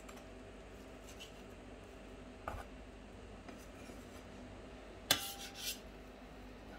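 Kitchen knife working through roasted chicken on a wooden cutting board: faint cutting and scraping, a light knock about two and a half seconds in, and a sharper knock of the blade on the board about five seconds in, with a smaller one half a second later.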